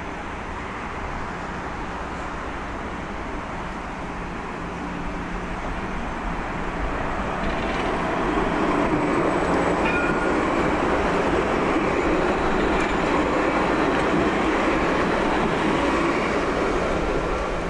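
A city light-rail tram passes close by. Its running noise swells over the first several seconds, holds at its loudest through the middle, and eases off near the end, with a brief faint squeal about ten seconds in.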